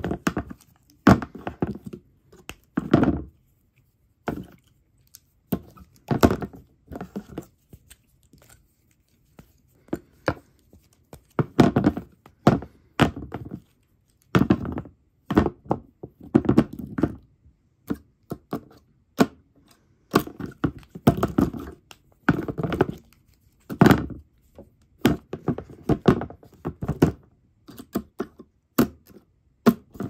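Handmade toy bug figures being knocked together and bumped on a tabletop: irregular clusters of dull thunks and quick taps, with short pauses between the bouts.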